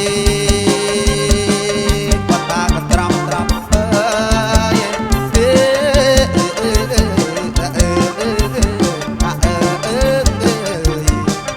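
Amplified kantrum band playing: a steady, driving drum beat with bass under a held lead note that, after about two seconds, gives way to a wavering melody line.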